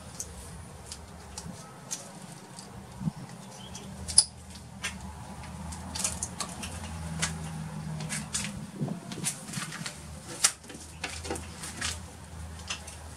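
Light clicks, taps and rattles of small hard objects being handled, with one sharp knock about four seconds in and another near ten and a half seconds, over a faint low hum.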